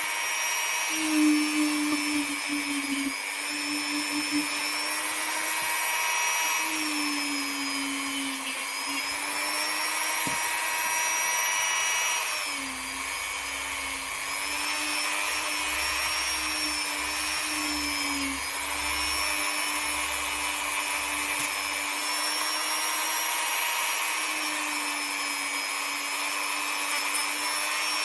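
Dremel rotary tool with a polishing bit running steadily while polishing the revolver's steel hammer and trigger. Its motor whines on one pitch that wavers slightly as the load changes.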